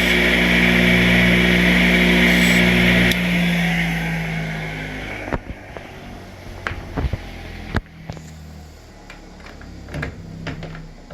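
Key-cutting machine motor running steadily with a hiss, then switched off about three seconds in and winding down over a couple of seconds. After it come scattered light clicks and knocks of handling.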